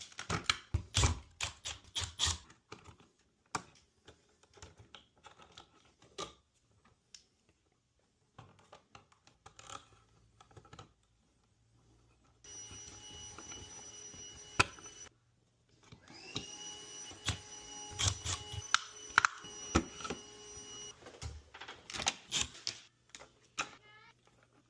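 Scattered clicks and knocks of handling, then a small electric power tool runs twice, once for about two seconds and then for about five seconds, its whine rising in pitch as it starts the second time, with more clicks over it.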